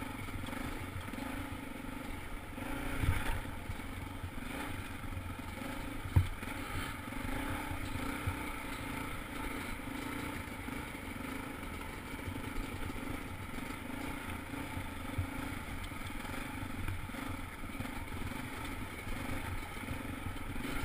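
Dirt bike engine running steadily at low revs while riding over slickrock, with a knock about three seconds in and a sharper one about six seconds in from the bike jolting over the rock.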